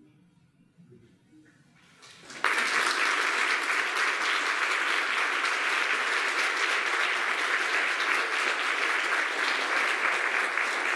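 Audience applause that breaks out suddenly after about two seconds of hush and then goes on steady and dense.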